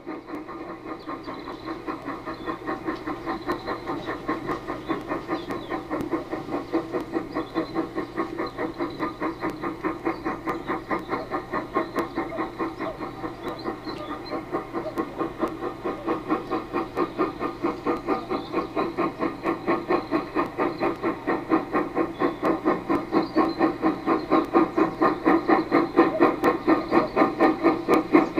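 Steam locomotive chuffing in an even rhythm of about four beats a second, growing gradually louder.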